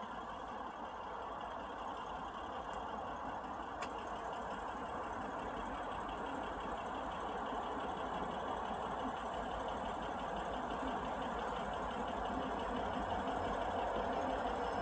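Distant SD70MAC diesel-electric locomotive approaching at the head of a freight train, its engine a steady drone that grows gradually louder as it nears.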